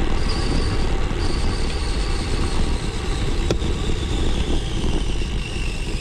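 Wind rumbling over a foam-covered action-camera microphone with road noise from a bicycle riding on a road. A faint high whine slowly falls in pitch, and there is a single click about three and a half seconds in.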